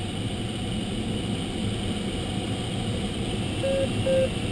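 Steady rush of airflow over a glider's canopy in flight, heard inside the cockpit, with two short beeps near the end, typical of the glider's audio variometer.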